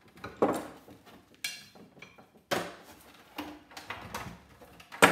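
Hand-work clatter of a degaussing cable being pried and pulled out from around a CRT television's picture tube: a run of separate knocks and short scrapes, about one a second, with the sharpest knock near the end.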